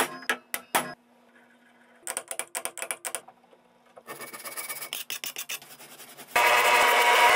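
Hand tools working a rusty bench vise: short runs of quick scraping clicks, then loud continuous scrubbing with a brush from about six seconds in.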